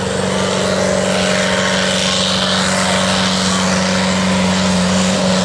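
A competition pulling tractor's engine running loud at a steady, high pitch, with no rise or fall in revs.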